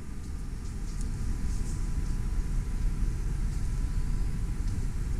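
Steady low rumbling noise with a faint, thin steady tone above it.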